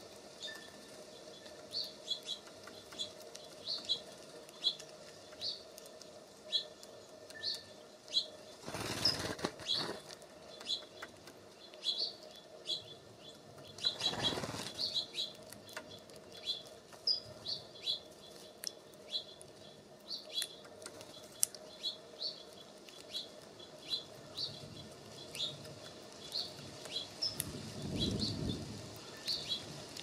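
Small songbird giving short, high chirps over and over, about one to two a second. Two brief whooshing flutters of wings about nine and fourteen seconds in, and a lower flutter near the end as a bird lands at the feeder.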